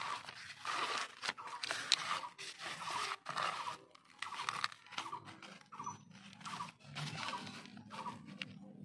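Rice-husk potting mix being pushed and pressed by hand around an adenium seedling in a plastic grow bag: irregular dry rustling and crunching with small clicks and scrapes.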